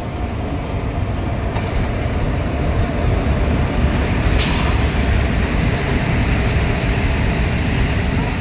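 A train hauled by a WAP-4 electric locomotive and a coupled diesel locomotive rumbles past on a neighbouring track, getting louder over the first few seconds. There is a single sharp metallic clank about four seconds in.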